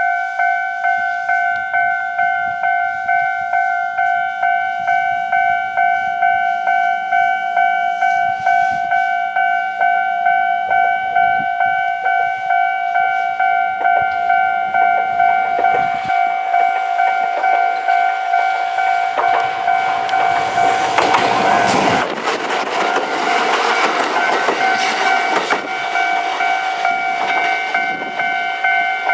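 Japanese level-crossing warning bell ringing in a fast, even repeating pattern throughout. About twenty seconds in, an electric train runs over the crossing with a rising rush of wheel noise and clatter over the rail joints, which then eases off.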